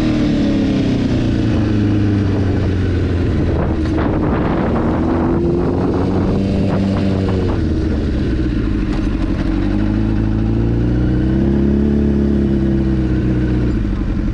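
Honda CBR1000RR inline-four engine heard from the rider's seat, its pitch rising and falling as the bike speeds up and slows. It settles to a steady low idle near the end as the bike rolls to a stop.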